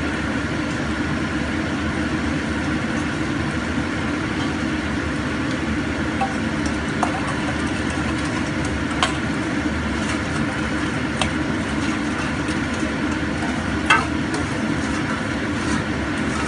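A metal spatula scraping and knocking against a stainless steel bowl, giving a few sharp clicks, over a steady low rushing noise.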